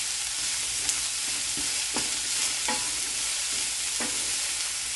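Chopped onion, carrot, cabbage and green peas sizzling in hot oil in a nonstick frying pan. A wooden spatula scrapes and knocks against the pan a few times as they are stirred.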